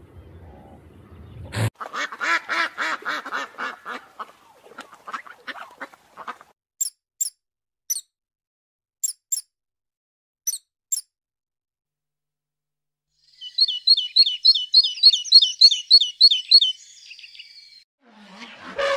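A run of separate animal sounds. First a series of loud, harsh, repeated calls. Then a few brief, very high squeaks from mice. Last, a fast, high, rapidly pulsing trill.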